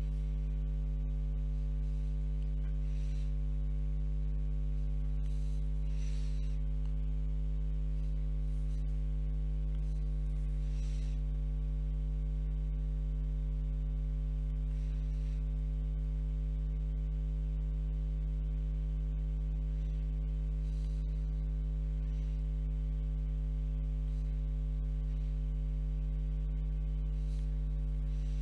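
Steady electrical mains hum, a low buzz with a stack of overtones. A few times, faint soft swishes of a calligraphy brush stroking across paper.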